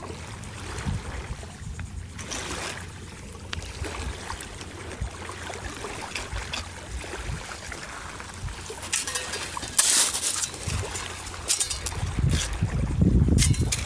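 Wind buffeting the microphone and small waves lapping at the water's edge, with louder rustles and crunches near the end as a metal sand scoop is pushed into the wet, gravelly sand to dig a target.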